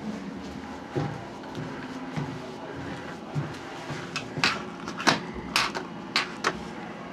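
A quick, uneven run of six or seven sharp clicks and knocks in the second half, over a steady low background hum.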